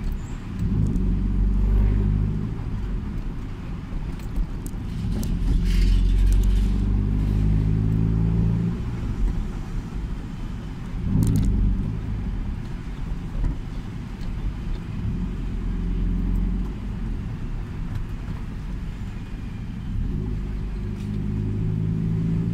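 Toyota Celica ST205's turbocharged four-cylinder engine and freshly repaired exhaust heard from inside the cabin, rising in pitch as the car accelerates and dropping back as it eases off, several times over.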